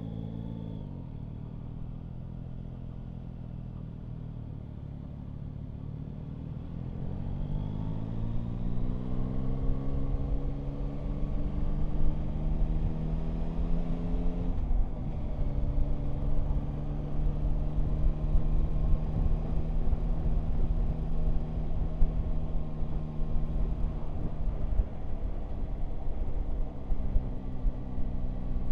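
Yamaha Tracer 9 GT's 890 cc three-cylinder engine heard from the bike itself. Its note falls as the bike slows at the start, then climbs steadily as it accelerates away, drops suddenly about halfway through, and settles into a steady cruise. Wind rumble grows as the speed rises.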